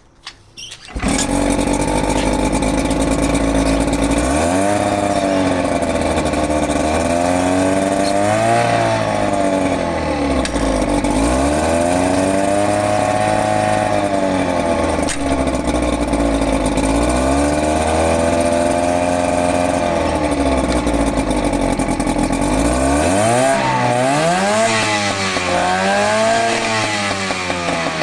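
Outboard motor starting up about a second in, then running and being revved up and down several times, its pitch rising and falling in slow sweeps.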